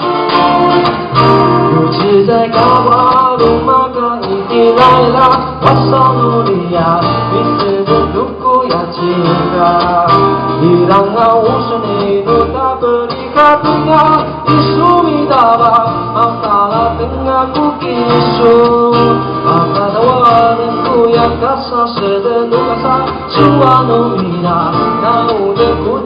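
Live acoustic band playing a song: strummed acoustic guitar and a plucked upright double bass, with a man singing into a microphone.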